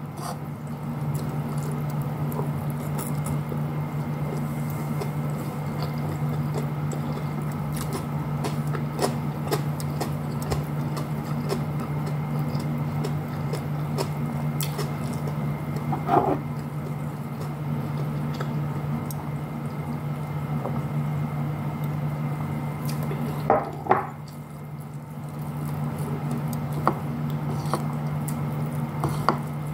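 Close-up eating sounds of a person eating rice and fried fish by hand: squishy chewing and mouth noises with small clicks, and a couple of louder wet sounds, over a steady low hum.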